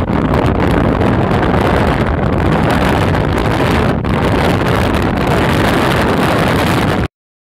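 Steady rush of wind and road noise from a moving vehicle, with wind buffeting the microphone. It cuts off suddenly near the end.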